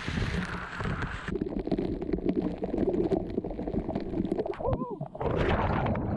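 Rushing water at a waterfall with wind noise on the microphone, broken by sudden cuts where the sound changes; a brief wavering sound a little before five seconds in.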